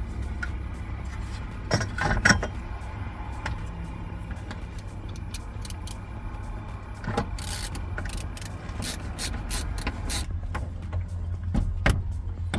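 Scattered clicks, taps and rattles of hand work on a van's interior door panel, with trim clips and screws going back in, over a steady low rumble.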